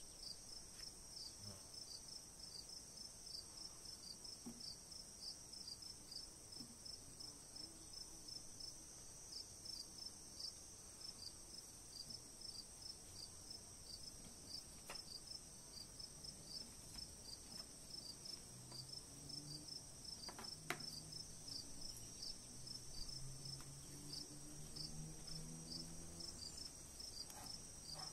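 Insects chirping steadily: a regular run of short chirps about three a second over a continuous high-pitched trill, with a few light clicks and a faint low hum that wavers in pitch in the second half.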